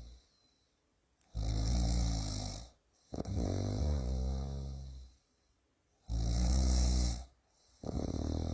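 A person snoring in a slow, regular rhythm: a short snore with a hissing edge, then a longer, buzzing one, the pair repeating about every five seconds with short silent gaps between.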